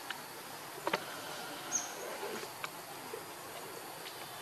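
Steady forest background of insect hum, with one short, high, falling chirp about two seconds in and a few sharp clicks, the loudest about a second in.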